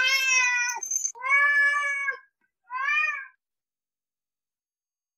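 Domestic cat meowing three times, each meow rising and then falling in pitch, the third one shorter.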